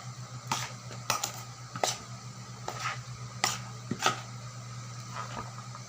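A spoon mixing chopped sisig with onions and chilies, giving irregular sharp clinks against the dish and soft squishing, over a steady low hum.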